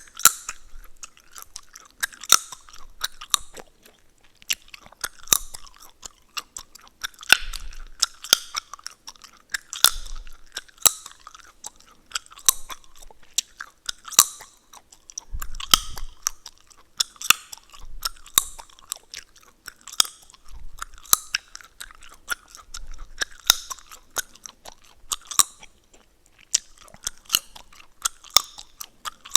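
Chewing gum close to the microphone: wet mouth smacks with sharp gum cracks and clicks, in an uneven rhythm of one to three a second.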